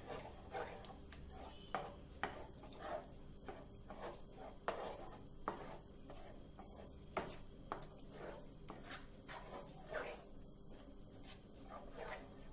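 Wooden spatula stirring and scraping a thick semolina, sugar and ghee mixture (rava kesari) around a frying pan: faint, irregular scrapes about once or twice a second.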